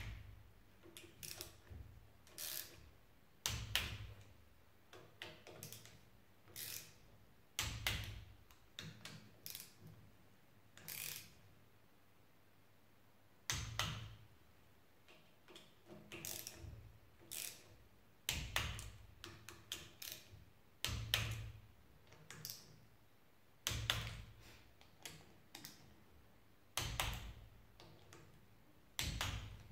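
Click-type torque wrench ratcheting on the engine's side-cover bolts, with short runs of ratchet ticks and a sharper click every few seconds as each bolt reaches the set torque of about 10 newton-metres.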